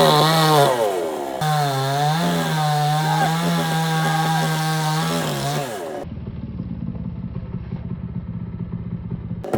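Chainsaw running at high revs, its pitch wavering and dipping as it cuts into wood. About six seconds in, the sound changes to a lower, rough rumble, and a sharp click comes near the end.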